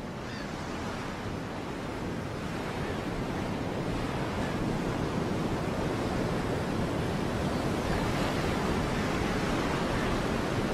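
Ocean surf and wind gusting over a beach: a steady rushing noise that slowly grows louder.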